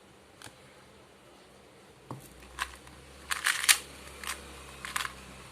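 2x2 Rubik's cube being turned fast in a speedsolve: quick plastic clicks and clacks of its layers turning. They start about two seconds in, some in rapid clusters.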